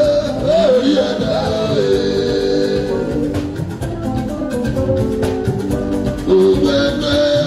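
Live band music with a man singing the lead into a microphone over a steady beat, his voice holding and sliding between notes.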